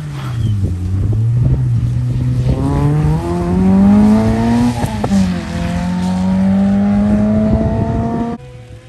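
Rally car engine accelerating hard, its pitch climbing, with a quick gear change about five seconds in. After the change it pulls again with a steadily rising note, and there are scattered crackles throughout. The sound cuts off abruptly near the end.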